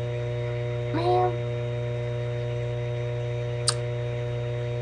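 Steady electrical hum, a low drone with several fixed higher tones above it, picked up by a webcam microphone. A brief voice sound comes about a second in, and a single sharp click comes late on.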